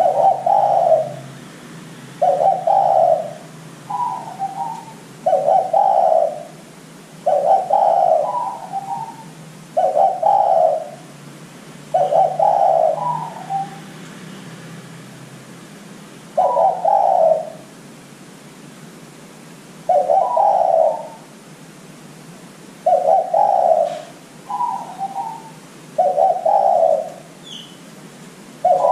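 Spotted dove (derkuku) cooing: a series of low, soft coo notes about a second long, in repeated phrases every two seconds or so, some ending on a higher note.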